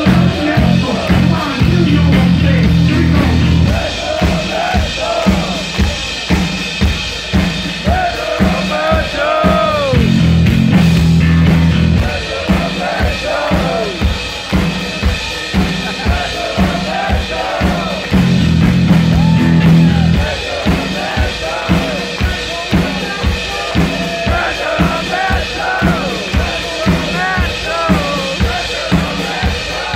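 Heavy metal band playing live: a steady, driving drum beat throughout, with loud bass-and-guitar chords that come in three times for a few seconds each and drop out again, and rising and falling high notes over the top.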